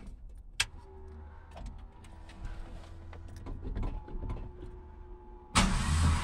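Ford F100 pickup being started from cold: the starter cranks the engine with a steady whirring hum for about five seconds, then the engine catches and fires with a sudden loud burst near the end.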